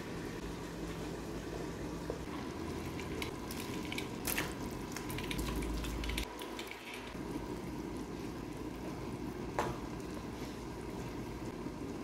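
Pots of stew simmering on the stove while a wooden spoon stirs, with a couple of sharp knocks of a utensil against the pot.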